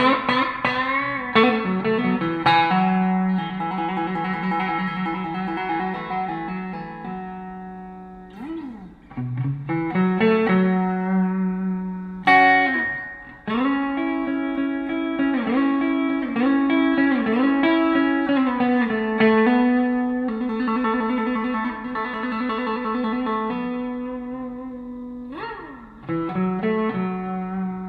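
Electric guitar played through the clean channel of an EVH 5150 EL34 tube amp: bluesy single-note lead lines with long sustained notes, several bent up and down in pitch, and a few brief pauses between phrases.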